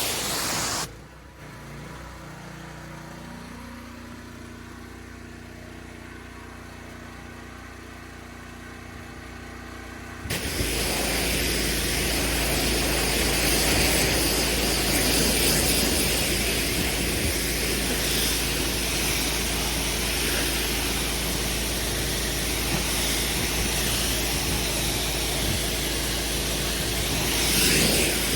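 Pressure washer: the hiss of the water spray cuts off about a second in, leaving the machine's engine running on its own with a steady hum. The loud spray hiss starts again about ten seconds in and runs on over the engine.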